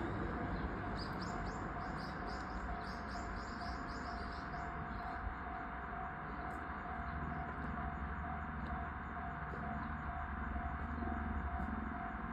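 Japanese railway level-crossing warning bell ringing in a steady, even repeat, signalling that a train is approaching. A small bird twitters in a quick series of chirps for the first few seconds.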